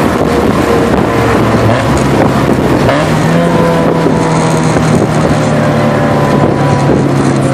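Mazda Miata's 1.6-litre inline-four running through a Flowmaster DBX exhaust, heard from inside the cabin while driving at a steady speed: a loud, steady exhaust drone that shifts slightly in pitch.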